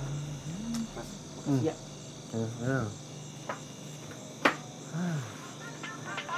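Steady chirping of crickets, with a few short wordless sounds from a man's voice and several sharp clicks, the loudest about four and a half seconds in.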